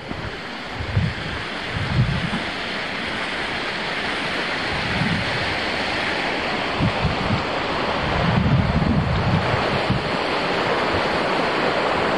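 Wind buffeting the microphone in low gusts over a steady rushing hiss.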